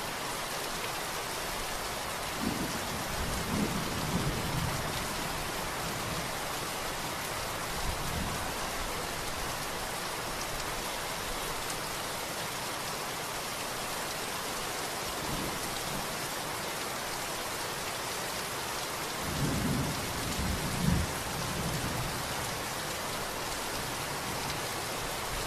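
Steady rain falling, with rolls of low thunder: one a few seconds in, weaker rumbles in between, and the loudest roll about three-quarters of the way through.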